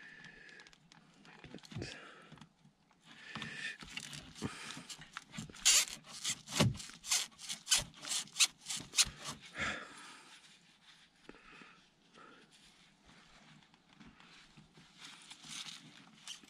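Pliers twisting a quick-connect fitting on an automatic-transmission cooler line to free it, making scraping and clicking noises. A run of rapid, even clicks, about four a second, comes in the middle and lasts about four seconds.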